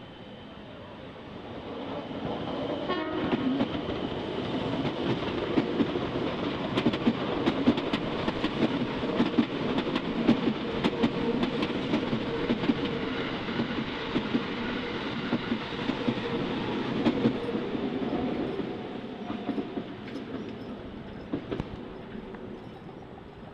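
A train passing over a level crossing, its wheels clattering over the rail joints. The sound builds over a couple of seconds, stays loud for about twelve seconds and fades away near the end.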